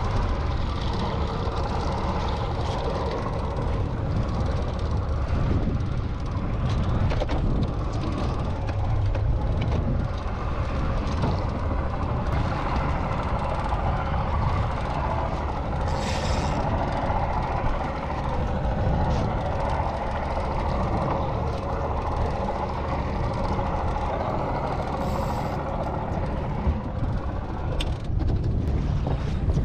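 Small boat under way on a two-stroke outboard motor, running at a steady pace, with wind and water noise; a few brief knocks come through near the end.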